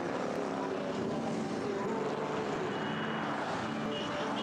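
Motorcycle engines running steadily while riding, several engine pitches at once over road and wind noise.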